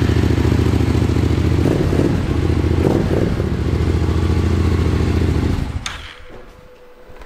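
Yamaha Raptor quad's single-cylinder engine running at a steady idle just after being started, then cutting out about six seconds in.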